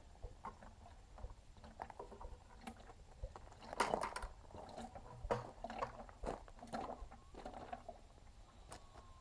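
Excavator hydraulic oil draining into a bucket, glugging and splashing unevenly, with louder surges about four and five seconds in. The uneven flow comes from the tank not venting freely.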